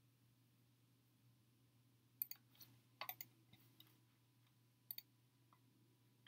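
A few sharp computer-mouse clicks over near-silent room tone: a small cluster about two to three and a half seconds in and a single click near five seconds.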